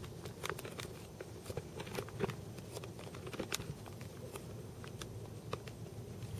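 Water dripping after rain: irregular sharp ticks, sometimes several a second, over a low steady rumble.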